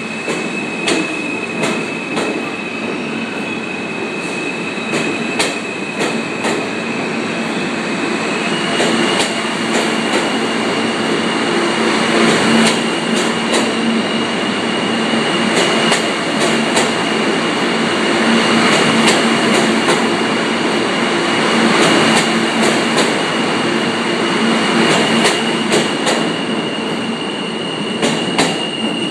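New York City Subway R train pulling out along the platform: a continuous rumble of steel wheels on rail, crossed by many sharp clicks over the rail joints. Above it a high steady whine from the train's electric drive steps up in pitch about eight seconds in. The sound grows louder as the train picks up speed.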